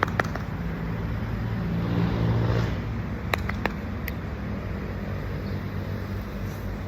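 A motor vehicle passes, its engine swelling and fading about two seconds in, over a steady traffic rumble, with a few sharp clicks.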